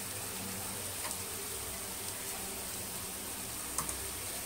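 Onion-tomato masala frying in oil in a pan: a quiet, steady sizzle, with a couple of faint ticks.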